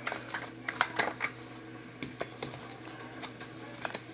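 Tarot cards being handled: a scatter of short, irregular clicks and snaps, several close together in the first second and a few more spread through the rest.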